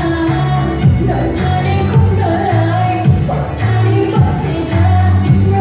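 A pop song with a singing voice over a bass line and a steady beat.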